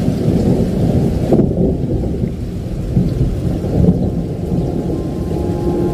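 Rain falling with a continuous low rumble of thunder. A held musical note comes in near the end.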